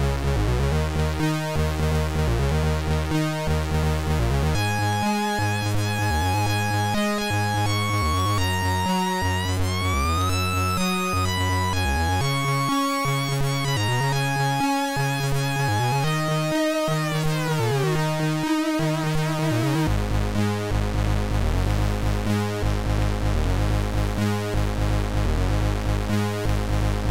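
Commodore 64 chip music played on a MOS 6581 SID chip: a pulsing bass line and regular drum hits under a lead melody that slides up in pitch and later back down with a wobble. About twenty seconds in the lead falls away and the bass moves lower.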